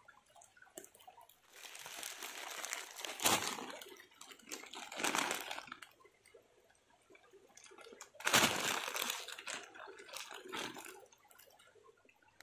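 Water splashing and a clear plastic bag crinkling as a freshly caught freshwater crab is handled and put into the bag, in three noisy bouts of a second or two.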